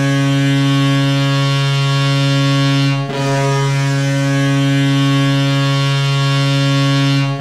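Ice hockey goal horn blowing in long, deep blasts of one steady pitch, breaking off briefly about three seconds in and again at the end.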